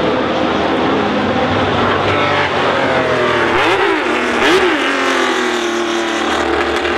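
Car engines running, with two quick revs a little past halfway.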